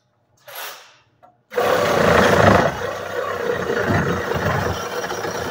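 Cordless reciprocating saw cutting through copper tubing to take off a brass fitting. It starts abruptly about a second and a half in and then runs steadily.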